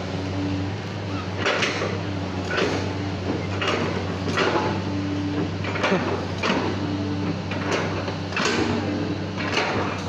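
Excavator's diesel engine running steadily. Over it come short hissing or scraping bursts about once a second, with brief whining tones in between, as the machine works its hydraulics while digging.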